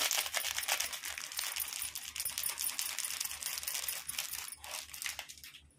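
Steel spoon clinking and scraping on a steel plate as spice powder is spooned out: a dense run of small metallic clicks and rattles that thins out to a few scattered ticks near the end.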